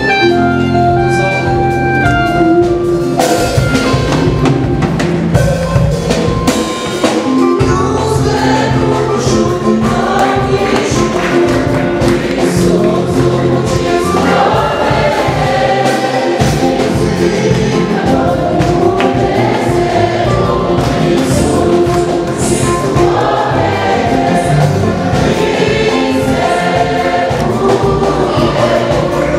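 A church choir singing gospel music with a live band. A few separate instrumental notes play at first, and the full band with drums and the choir come in about three seconds in.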